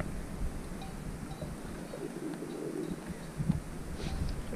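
A bird calling faintly, a low cooing sound about two seconds in, over a light background hiss.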